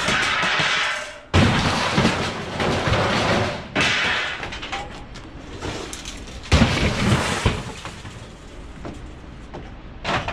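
Scrap appliances and sheet metal being dragged out of a van and thrown down onto a pile: scraping, clattering and crashing metal, with a heavy crash about six and a half seconds in.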